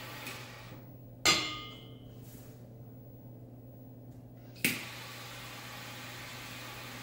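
Triple-jet butane torch lighter hissing as it toasts the foot of an oversized cigar. It cuts off with a sharp click a little over a second in, then about three seconds later clicks on again and the flame hiss resumes steadily.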